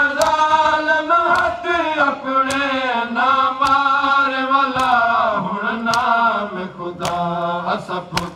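A group of men's voices chanting a Saraiki noha mourning lament, drawn-out and wavering. Hands slapping chests in unison (matam) about once a second keep the beat, eight strikes in all.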